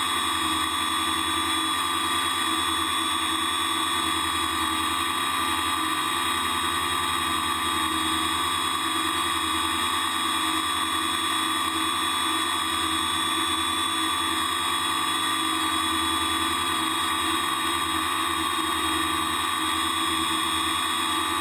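ArduCopter multirotor's electric motors and propellers whining steadily in a hover, heard from the camera on board the craft.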